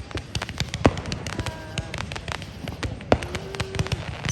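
Fireworks going off: a rapid string of sharp crackling pops, with louder bangs about a second in and again near three seconds.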